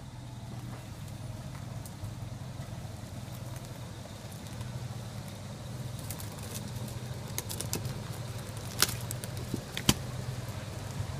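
Toyota Land Cruiser 60 series engine running at low speed as the four-wheel drive crawls through a washed-out track, a steady low drone. Several sharp clicks and knocks come in the last few seconds, the loudest about nine and ten seconds in.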